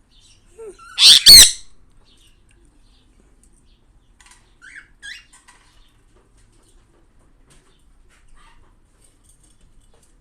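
Pet bird giving a loud, harsh double squawk about a second in, followed by a couple of faint short chirps around the middle.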